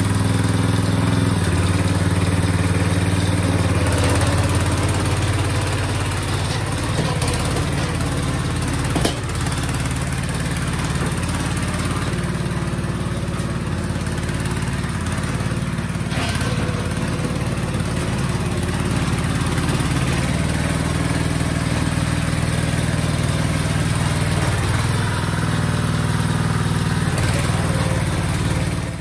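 Honda GX160 single-cylinder four-stroke petrol engine of a tracked dumper running steadily, with a small drop in level about nine seconds in.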